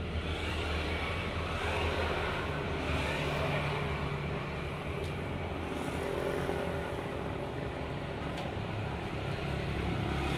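Road traffic noise: motor vehicles running and passing, with a steady low engine hum.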